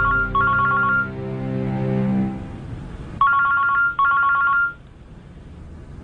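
A telephone ringing in pairs of short electronic trills: two rings at the start and two more about three seconds in. Under the first rings, a music cue's held notes fade out by about two and a half seconds.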